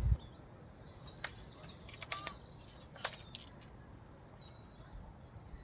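Small birds chirping faintly with short, quick calls, with a few sharp clicks in the first half.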